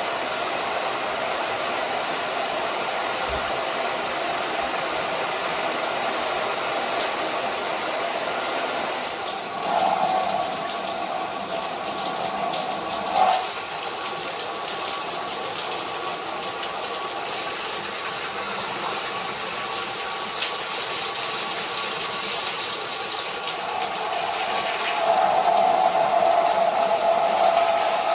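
Water spraying steadily from a SparkPod handheld shower head, an even rushing hiss. The sound shifts about ten seconds in and grows fuller near the end.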